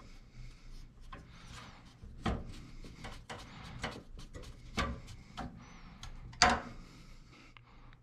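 Screwdriver and screws clicking and scraping against a steel PC case while the motherboard is screwed down, with three sharper knocks about two, five and six and a half seconds in.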